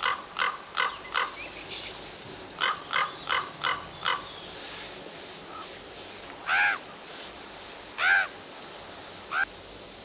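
Common ravens calling: two quick runs of about five short calls each, then two longer, arching croaks about a second and a half apart and one short call near the end, so two different kinds of call are heard.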